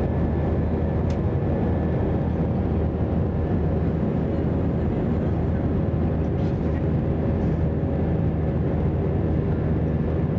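Steady cabin noise of an Airbus A320 in flight, heard from a seat over the wing: a constant jet-engine drone with airflow noise, unchanging throughout.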